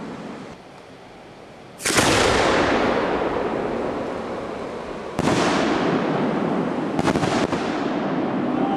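Homemade aerial firework shells bursting overhead: a loud boom about two seconds in and another about five seconds in, each dying away in a long rolling echo, then two sharp cracks close together near the end.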